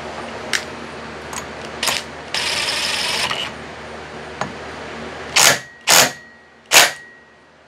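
Hand tools and metal chainsaw parts being handled: a few light clicks, about a second of hissing, then three loud knocks on metal, the last one leaving a short metallic ring.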